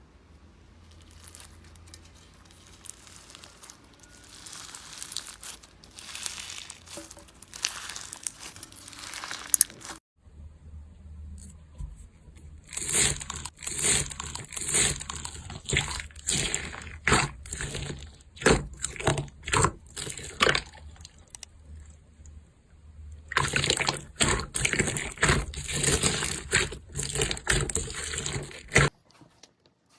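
Slime being squeezed and poked by hand, making wet clicks, pops and squelches. It is faint for about the first ten seconds, then loud and close in two stretches of rapid, irregular popping that stop abruptly near the end.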